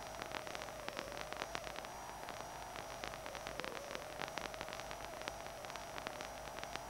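Playback noise from blank videotape after the recording ends: a steady hiss with a wavering drone and a faint high whine, broken by frequent irregular crackling clicks.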